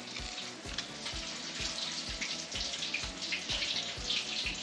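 Hot oil sizzling and crackling steadily in a deep fryer as fish is deep-fried, with faint background music under it.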